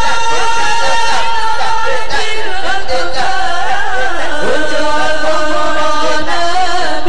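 Sholawat sung in Arabic by a congregation of many voices together: a slow, melodic devotional chant with long, wavering held notes.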